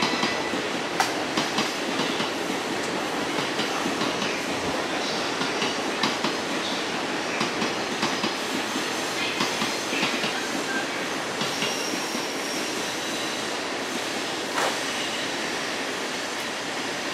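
Electric passenger train running on the tracks, a steady rumble with wheels clicking over rail joints.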